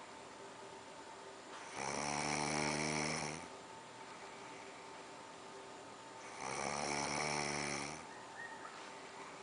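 Snoring during sleep: two long snores, each about a second and a half, some four and a half seconds apart.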